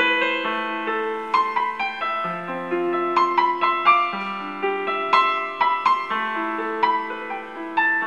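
Yamaha P-120 digital piano played with both hands in its piano voice: a melody in the upper notes over held chords and bass notes, each note sustaining and fading.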